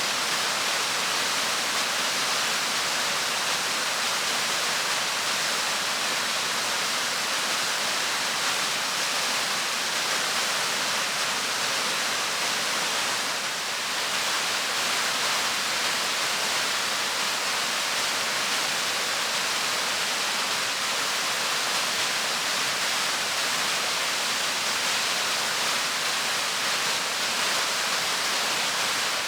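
Waterfall rushing: a steady, unbroken hiss of falling and splashing water, strongest in the high range.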